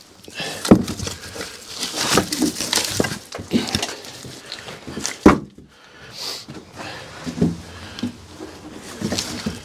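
Split firewood logs knocking and clattering against one another as they are handled and stacked, with irregular wooden clunks; a sharp knock about five seconds in is the loudest.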